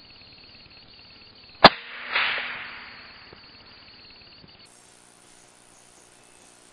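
A single rifle shot fired up into the tree canopy, one sharp report, followed about half a second later by a brief rustling hiss that fades over about a second.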